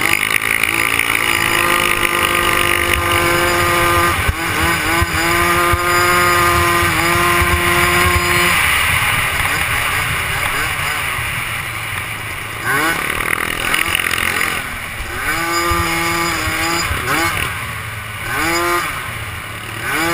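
Youth 90 cc ATV engine running at high revs, held steady for the first half, then a series of short rev-ups in the second half as the throttle is opened and eased.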